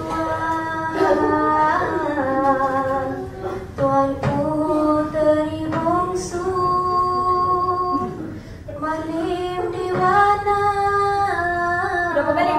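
A woman singing a slow melody with long held notes, breaking off briefly about two-thirds of the way through before going on.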